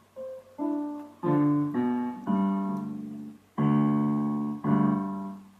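Casio CTK-6300IN electronic keyboard played on its grand piano tone: a few soft single notes, then a series of held chords, each fading away, the loudest struck about three and a half seconds in.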